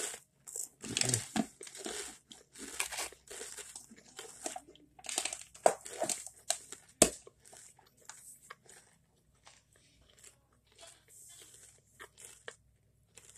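Close-up chewing of a mouthful of Pringles potato crisps: irregular crunching, dense at first and thinning out toward the end as the mouthful is eaten down.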